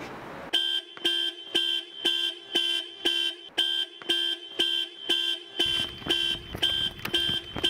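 Mercedes-Benz SUV's car alarm going off, its horn-like tone sounding in even blasts about twice a second, starting about half a second in.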